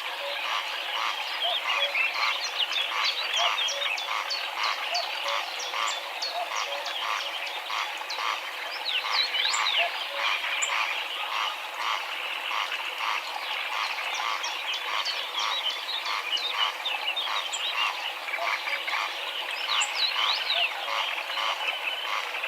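A flock of greylag geese calling together: many short, overlapping nasal calls repeated roughly twice a second without a break, with higher chirping calls scattered through.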